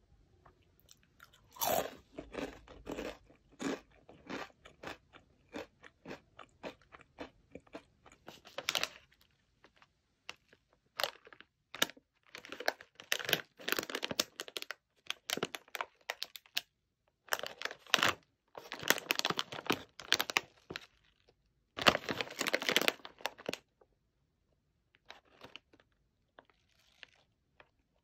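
Close-up crunching and chewing of a crisp Goraebob whale-shaped cracker: a rapid run of sharp crunches through the first several seconds. Later, a plastic snack bag crinkles in several bursts as it is handled.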